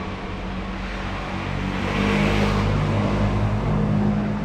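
A motor vehicle engine running with a steady low hum, getting louder about two seconds in.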